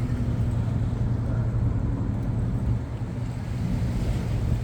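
Ferry engine running with a steady low hum and rumble.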